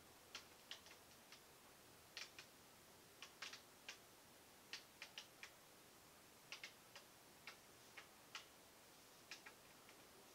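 Faint, irregular light clicks and ticks, a few a second, from a wet acrylic-pour canvas being tilted by hand over a covered work table.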